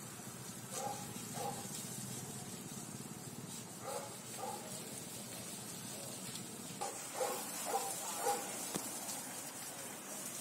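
Water from a garden hose spraying steadily over an elephant's hide. Short animal calls come in small groups about a second in, around four seconds in, and more often near the end.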